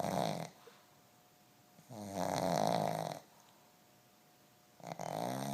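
A sleeping pug snoring loudly in regular breaths: one snore trails off just after the start, a full snore runs from about two seconds in for a little over a second, and the next begins near the end.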